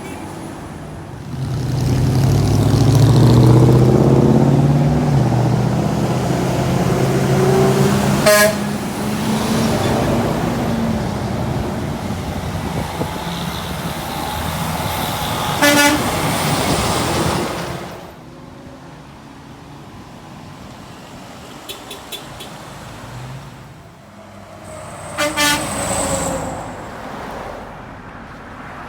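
Trucks driving past with loud diesel engines, sounding short horn blasts: one about eight seconds in, another about sixteen seconds in, and two quick ones near the end.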